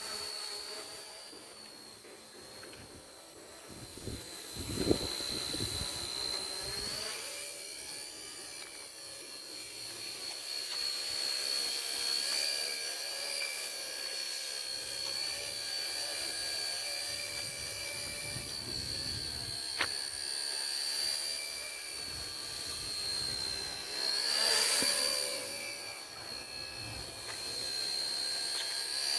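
Small electric motor and rotor of a homemade mini remote-controlled helicopter running with a steady high whine whose pitch wavers slightly. There is a short thump about five seconds in, a sharp click near twenty seconds, and a brief louder swell near the end.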